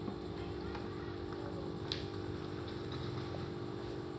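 A steady low hum with a few faint clicks, one sharper click about two seconds in.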